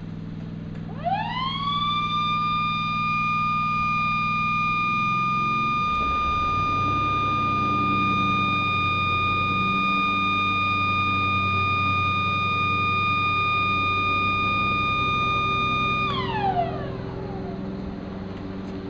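Warning siren sounding a steady alert blast: it winds up to a single held pitch about a second in, holds steady for about fourteen seconds, then winds down near the end.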